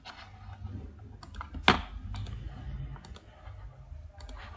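Irregular clicks of a computer mouse and keyboard keys, with one sharp, louder click about a second and a half in, over a low hum.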